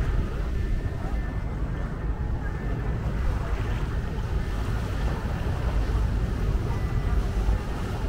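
Wind buffeting the microphone beside choppy river water, a steady low rumble, with a motorboat running as it crosses the river.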